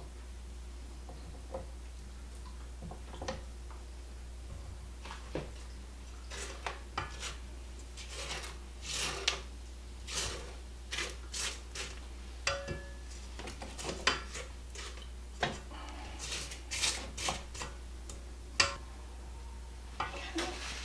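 Red spatula scraping cream cheese mixture off a stand mixer's flat beater and around its stainless steel bowl: irregular scrapes and light knocks against the metal, starting a few seconds in.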